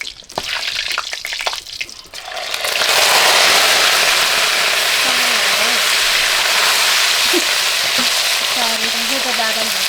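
Chicken frying in hot oil: a few knocks and scrapes of stirring, then about two seconds in a loud, steady sizzle starts suddenly and keeps going.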